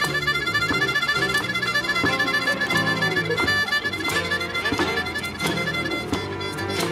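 Music: an instrumental break in a blues-style song, with a high lead line of quick repeated notes over held bass notes and a steady beat.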